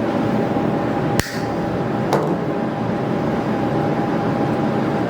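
Wire cutter snipping off excess 19-gauge clasp wire: one sharp click about a second in and a fainter click about a second later, over a steady room hum.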